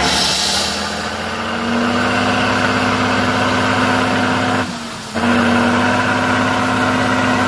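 Tatra 6x6 trial truck's diesel engine revving hard and held at high revs as the truck works nose-down in a muddy ditch, easing off briefly about two-thirds of the way through, then pulling hard again. A short hiss at the very start.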